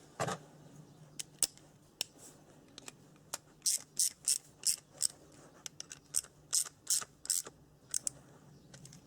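Irregular small metallic clicks and ticks from hand work on a reassembled quad-bike starter motor, coming thickest in the middle few seconds, over a faint steady low hum.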